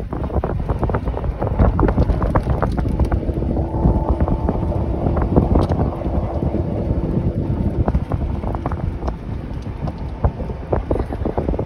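Wind buffeting the microphone from a moving golf cart, over the cart's low running rumble and rattles. A faint steady whine comes in about three and a half seconds in and fades out around nine seconds.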